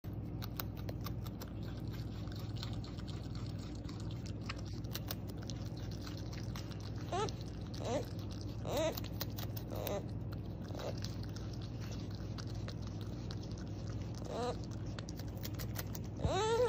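Beaver chewing, rapid crunchy clicks, followed from about seven seconds in by a series of short whining calls that rise and fall in pitch, about seven of them, the last near the end the loudest. A steady low hum runs underneath.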